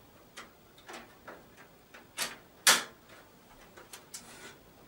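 Plastic clicks and snaps as black plastic cover pieces are pushed into the front drive bays of a desktop PC tower case. Light ticks throughout, with two sharp snaps a little past two seconds in, half a second apart, the second the loudest.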